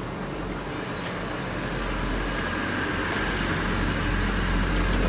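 Brother DCP-L2540DW laser printer running as it draws a sheet in through its front manual-feed slot and prints an ID copy: a steady mechanical whir with a low hum that grows gradually louder.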